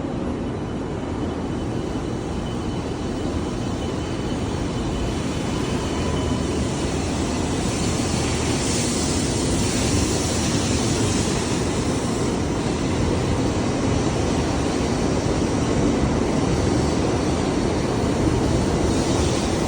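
700 series Rail Star Shinkansen train pulling out of the station, its running noise growing steadily louder as it gathers speed.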